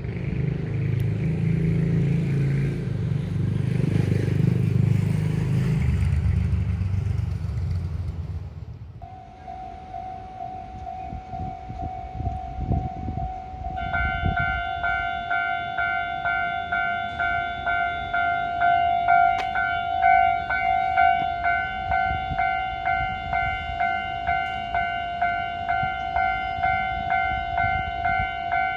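A vehicle runs past with a low rumble that fades out about eight seconds in. Then a level crossing's warning bell starts, as a steady tone that is joined a few seconds later by a fuller, ringing tone. It repeats evenly at about one and a half strikes a second.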